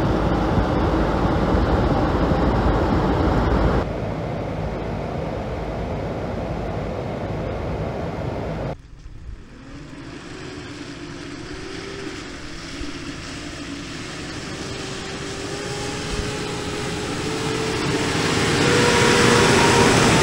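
Steady rushing noise inside a pickup truck's cab. After a sudden cut, the truck's engine pulls a heavy caravan through mud, its revs climbing slowly and getting louder toward the end.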